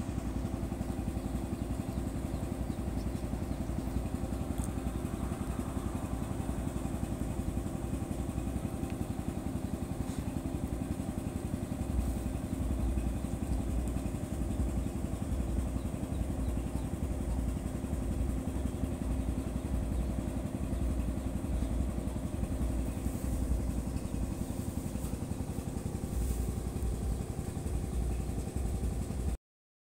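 A small engine running steadily at an even speed: a constant low hum with a few fixed tones.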